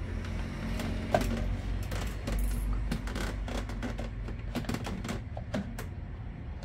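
Plastic clicks and knocks as the rear cover of a Sharp electric fan's motor housing is fitted and pressed into place by hand, over a steady low rumble.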